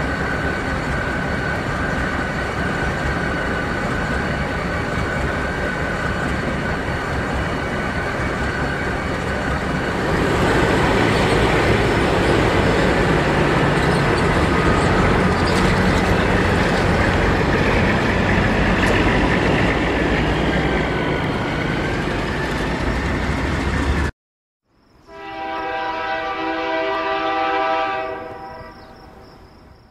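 A train running by, a continuous rumble and rail noise that grows louder about ten seconds in. After a sudden break near the end, a train horn sounds one long chord for about four seconds and fades away.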